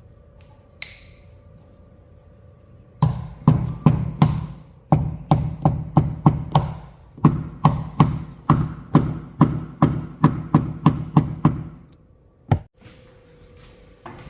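A hammer tapping down on an aluminium car hood in paintless dent repair, a quick run of sharp knocks at about three a second that starts about three seconds in and stops near the end, with one last single knock.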